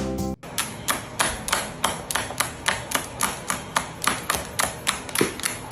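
A rapid, even run of sharp taps or claps, about four a second.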